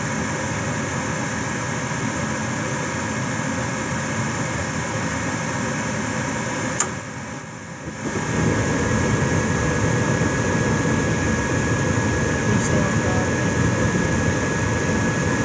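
Rheem Criterion gas furnace running with a steady fan-and-burner noise. About seven seconds in there is a sharp click and the sound dips for about a second, then comes back louder and steady with a faint high whine. This is typical of a furnace that keeps cycling on a flame-sensing fault, which the owner suspects is a bad flame sensor.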